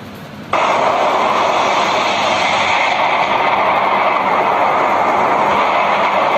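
Loud, steady rushing noise of a rainstorm, heavy wind and rain together, cutting in abruptly about half a second in.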